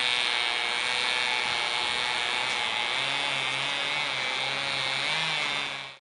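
Chainsaw running steadily while logs are sawn, with a lower drone coming in about halfway through.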